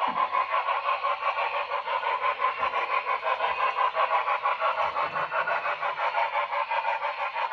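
Steam chuffing from a model steam locomotive's DCC sound decoder: a rapid, even run of chuffs. The chuff rate is out of step with the turning of the drivers, a fault that shows after slowing from speed step 18 to 17.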